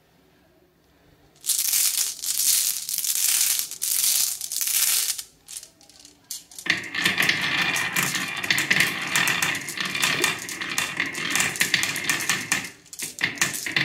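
Glass marbles clattering and rolling down a wooden marble-run slope, clicking against each other and the grooved track in two long runs, the second starting about seven seconds in, then a few separate clicks as the last marbles settle.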